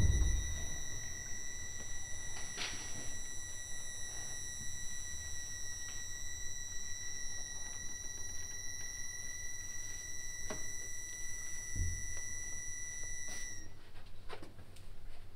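A single high held note, steady in pitch with a clear string of overtones, sounding on its own as the last note of a piece for accordion and electronics, then cutting off near the end. A few faint clicks and one soft low thump lie under it.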